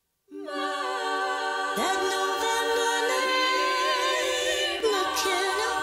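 Background music: a cappella voices singing long, held chords.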